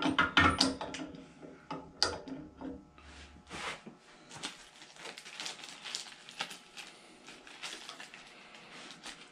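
Metal clatter as the Carter quick-release fitting is set onto the bandsaw's upper yoke in the first second, with another sharp click about two seconds in. Then light clicks and rustling as small bolts and hardware are handled at the bench.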